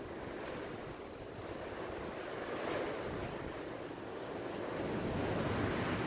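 Blizzard wind rushing steadily through trees, swelling louder in the second half, with gusts buffeting the microphone.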